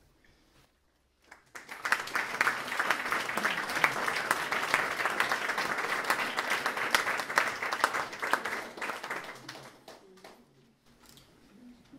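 Concert audience applauding: the clapping starts about a second and a half in, holds steady for about eight seconds, then dies away.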